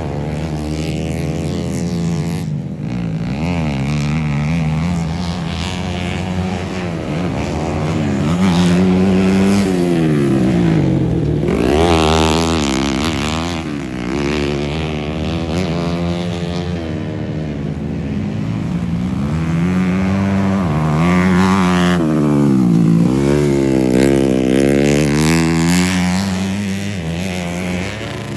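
Several dirt-bike engines racing round a dirt track. Their notes rise and fall again and again as the riders open and close the throttle through the corners, growing louder twice as bikes come nearer.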